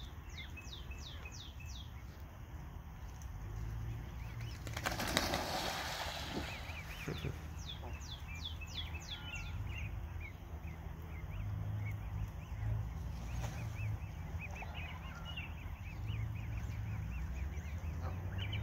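Canada geese flapping their wings and splashing on the water about five seconds in, as the geese squabble. A small bird sings runs of quick falling notes at the start and again around eight seconds, with light chirping in between.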